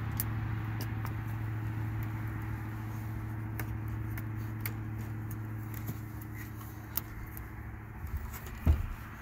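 Light metallic clicks and scrapes as an AR-15's bolt carrier and charging handle are slid out of the upper receiver, with a louder knock near the end. A steady low hum runs underneath.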